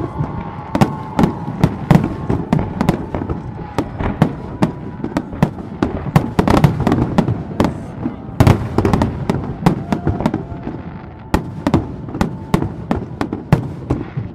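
A dense barrage of fireworks: aerial shells bursting in rapid succession, several loud booms and cracks a second overlapping each other. The barrage stops near the end.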